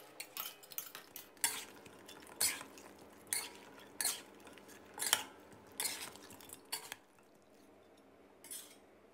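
Metal spatula scraping and clinking against a stainless steel wok, stirring through thick sauce, about one stroke a second. The strokes stop about seven seconds in, with one more short scrape near the end.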